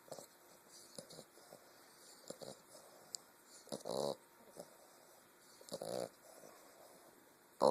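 English bulldog puppy snoring in its sleep: one snore about halfway through and another about two seconds later, each lasting about half a second, with soft snuffling breaths between them. A louder snore begins at the very end. Snoring like this is typical of the breed's short-muzzled airway.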